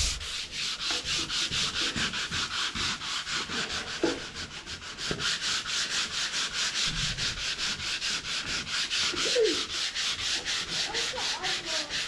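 Sandpaper being rubbed by hand over a painted wooden drawer in quick, even back-and-forth strokes, about four a second, wearing off the old white paint.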